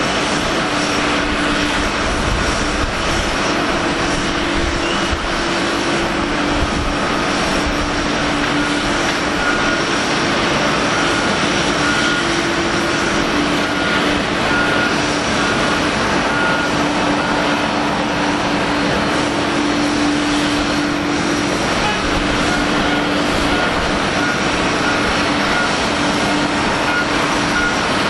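Steady jet engine noise of a Boeing 737-800's CFM56-7B turbofans as it climbs away after takeoff, mixed with steady airport hum that carries a low droning tone.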